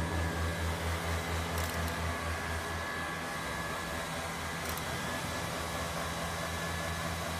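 Prototype racquetball practice machine running with a steady motor whir over a low, pulsing hum that weakens about three seconds in; two faint ticks come partway through.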